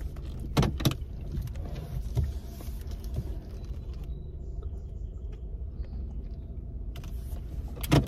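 Steady low engine and road rumble inside a moving car's cabin, with a couple of sharp clicks a little past half a second in and another just before the end.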